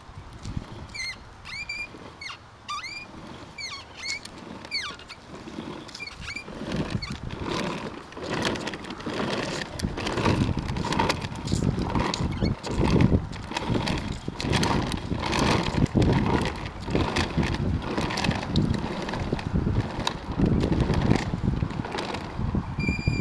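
Hard plastic wheels of a toddler's ride-on toy motorcycle rolling over asphalt, a rough, uneven rumbling clatter that grows louder about six seconds in. In the first five seconds, short high squeaks repeat about twice a second.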